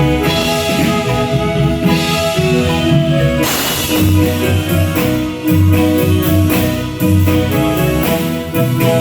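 Marimba band playing live: marimba melody over bass and drum kit, with a cymbal crash about three and a half seconds in.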